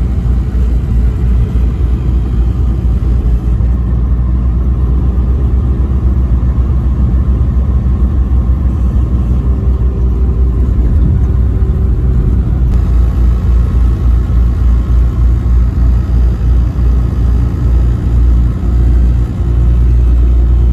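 Car driving on the highway, its road and engine noise a loud, steady low rumble that wavers quickly in level.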